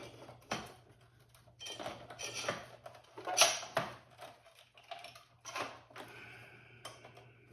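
Scattered clicks and knocks of parts being handled inside a desktop PC case as a graphics card is worked loose, with the loudest knock about three and a half seconds in. A faint steady low hum runs underneath.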